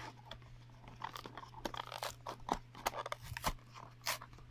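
Plastic blister pack and cardboard backing card of a die-cast toy car being picked at and pulled, giving soft irregular crackles and clicks as the tape on the back is worked loose.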